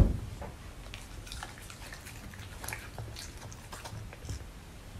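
Samoyed chewing a piece of beef steak: soft, scattered mouth and teeth clicks.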